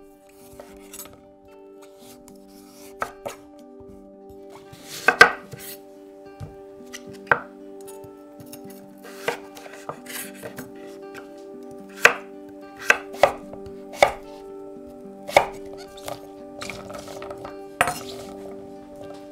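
Chef's knife chopping butternut squash on a wooden cutting board: a dozen or so irregular sharp knocks of the blade against the board, the loudest about five seconds in. Quiet background music plays underneath.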